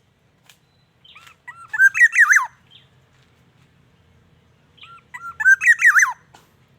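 Black-naped oriole calling: two short phrases of quick, bending whistled notes, about three seconds apart.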